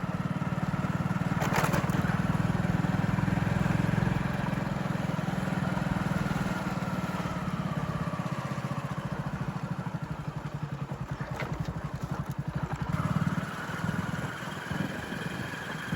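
A vehicle engine running steadily with a low, pulsing rumble, heard as if from on board while moving along a road. A couple of brief sharp noises cut through about a second and a half in and again near eleven seconds.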